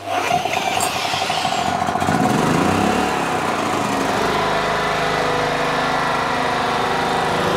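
Portable petrol generator engine being spun over with a cordless drill on its starter hub, the drill whining over the cranking. The engine catches about two to three seconds in and settles into a steady run.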